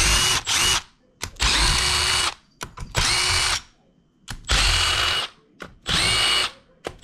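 Cordless drill/driver backing out screws from a battery module's plastic cover: the motor whines in short runs of about a second each, six times, with brief pauses between them.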